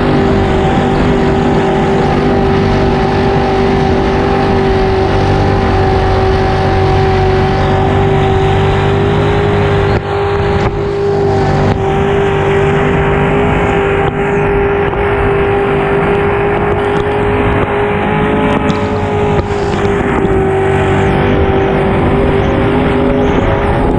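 Racing swamp buggy's engine running hard at a steady pitch, heard from on board, with water spray and wind noise rushing over it; the level dips briefly about ten seconds in.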